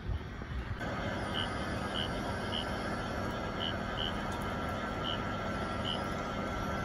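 Pumps of a flood-drainage pumping station running, a steady mechanical drone with hiss that begins abruptly about a second in; the drainage pumps have started working. A few short high chirps come through over it.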